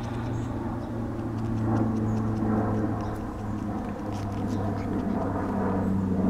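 A motor drones steadily and low throughout, with faint soft scuffles and little noises from two young puppies wrestling on a quilt.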